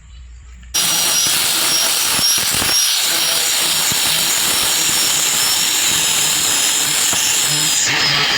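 Angle grinder fitted with a homemade sandpaper flap disc, running and sanding. It starts abruptly about a second in, with a steady high whine over a loud hiss, and cuts off near the end.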